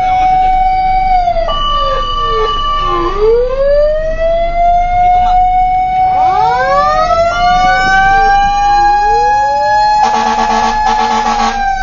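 Fire truck sirens wailing, heard from inside the cab: the pitch holds, drops away and sweeps back up several times, with more than one siren overlapping. About ten seconds in, a rapidly pulsing horn blast lasts nearly two seconds.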